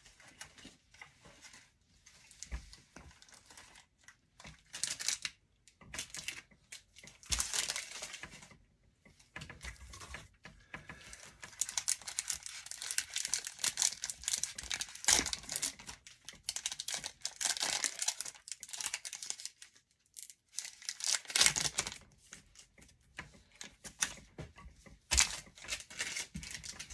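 Foil wrapper of an Upper Deck hockey card pack being torn open and crinkled in the hands, in irregular rustling bursts with a longer stretch of crinkling in the middle.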